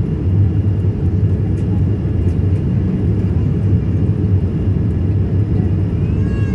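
Steady low cabin rumble of a Boeing 787-9 in flight, the noise of its Rolls-Royce Trent 1000 engines and the airflow heard from a window seat inside the cabin.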